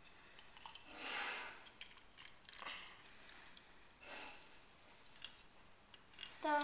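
Boiling water poured from a stainless-steel kettle into a plastic beaker: a faint splashing trickle that comes in a few spells, with a few light clinks.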